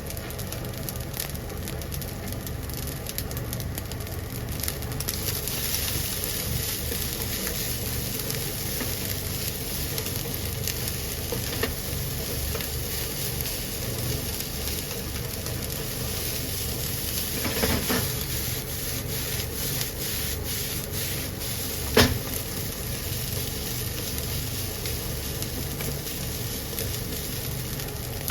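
Rice and chopped green onion sizzling in oil in a frying pan as they are stir-fried, with a couple of sharp knocks against the pan in the second half.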